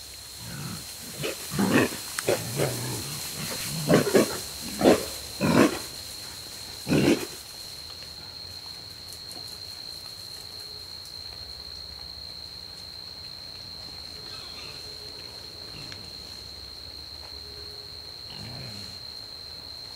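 Feral hogs calling: about eight loud, short calls in the first seven seconds or so, then only faint sounds.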